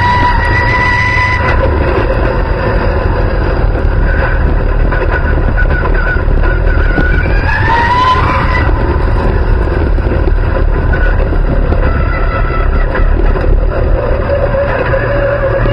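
Dirt-track race car's engine running steadily, heard loud from an onboard camera in the cockpit; its pitch climbs briefly about halfway through.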